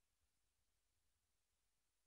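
Near silence: only faint hiss and low hum.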